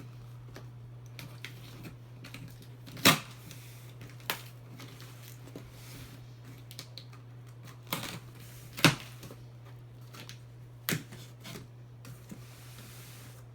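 A handful of sharp clicks and knocks from objects being handled, the two loudest about three seconds in and about nine seconds in, with a soft rustle near the end, over a steady low hum.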